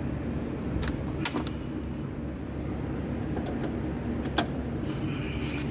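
Steady low mechanical rumble, like an engine running, with a few sharp clicks and taps over it: one about a second in, another just after, and one near the end.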